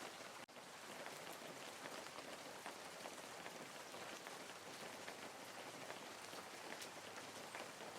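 Rain falling steadily, a dense patter of drops, with a sudden brief dropout about half a second in.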